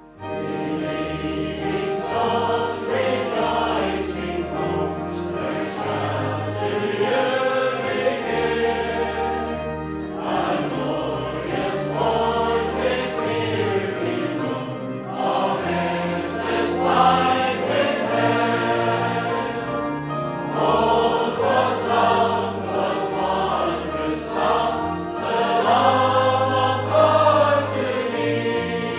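Choir singing with instrumental accompaniment, the melody in phrases of a few seconds over held bass notes.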